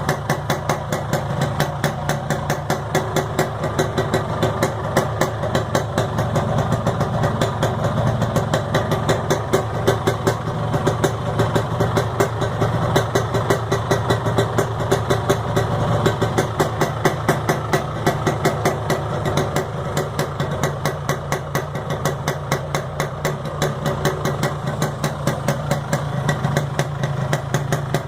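Yamaha RX-King's single-cylinder two-stroke engine idling steadily with an even, regular pulse while it is warmed up from cold.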